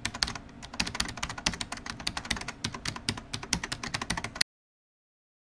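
Keyboard typing sound effect: a rapid, uneven run of key clicks that cuts off abruptly about four and a half seconds in.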